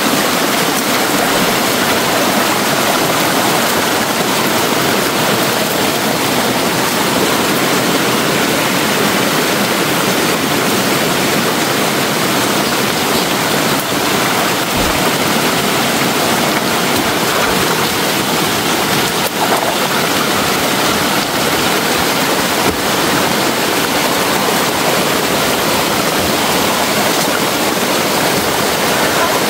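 Steady, even rushing of a stream of running water, with no breaks or changes.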